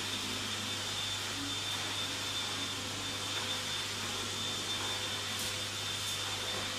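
Vacuum cleaner running steadily, a continuous motor noise with a thin high whine.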